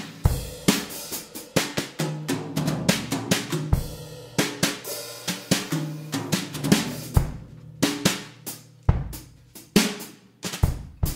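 Background music with a drum kit playing a steady beat of snare, kick drum, hi-hat and cymbals over a bass line.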